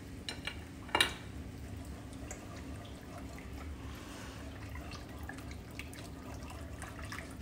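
Wire whisk stirring coconut milk and green curry paste in a pan: soft liquid swishing with light clicks of the whisk against the pan, one sharper clink about a second in.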